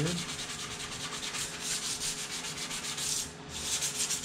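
Rapid back-and-forth hand scrubbing with an abrasive on the steel side of a 20-inch chainsaw bar, polishing off surface rust, with a brief pause about three seconds in.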